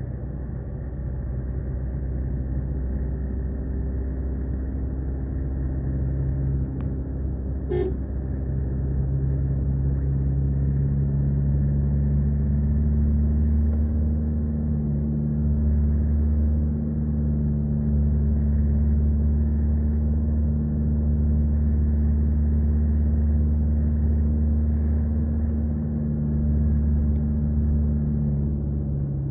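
Road vehicle's engine running at a steady speed while driving, a continuous low drone that settles into an even pitch after about ten seconds, with a brief click about eight seconds in.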